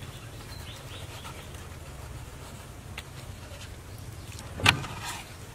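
Aloe vera leaf being peeled by hand on a wooden cutting board, the skin pulled away from the wet gel, with one sharp, loud knock about three-quarters of the way in. A low steady background rumble and faint bird chirps run underneath.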